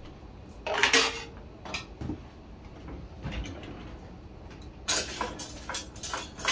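Kitchen utensils clattering and clinking against pots and dishes: a loud clatter about a second in, a few scattered knocks, then a quick run of clinks near the end.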